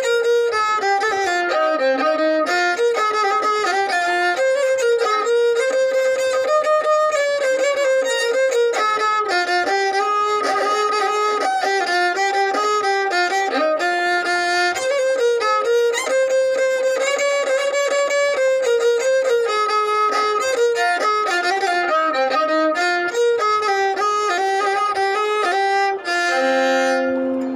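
Violin playing a quick, ornamented melody, ending on a few held notes near the end.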